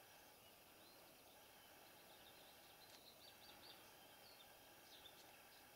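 Near silence: faint outdoor background hiss with a few faint, short, high bird chirps scattered through.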